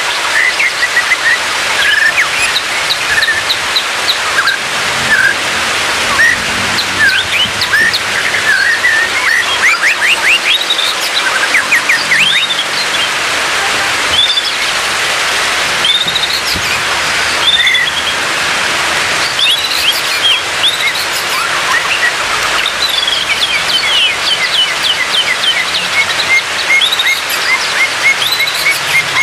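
White-rumped shama song: a continuous, varied run of loud whistles, fast sweeping trills and repeated chips, over a steady rushing noise.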